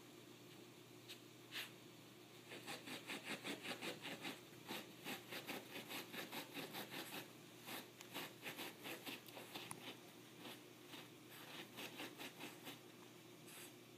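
A small dog's claws scratching at carpet as it digs: quick runs of scratches, several a second, starting a couple of seconds in and going on with short pauses.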